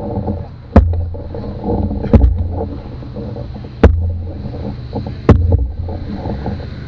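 Canoe paddle knocking against the canoe's hull or gunwale on each stroke: four sharp knocks about a second and a half apart, over a steady low rumble of the moving canoe.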